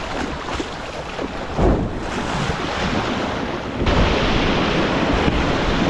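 Rushing river whitewater around a kayak, with wind on the microphone; the rush becomes suddenly louder about four seconds in.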